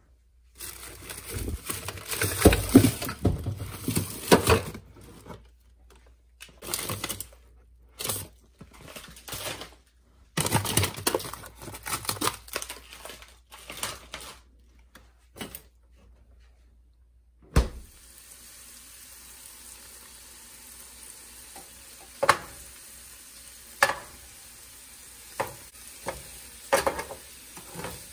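Home cooking sounds in short cut-together clips: bursts of kitchen clatter and handling noise, then, past the middle, a steady sizzle of food frying in a pan with occasional sharp clicks.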